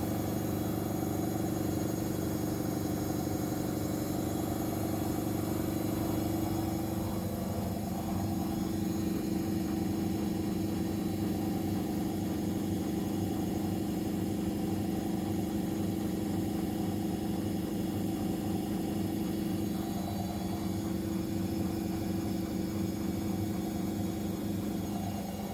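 Whirlpool FL 5065 front-loading washing machine running through its drain and spin cycle: a steady motor hum that takes on a fast, regular pulsing about eight seconds in.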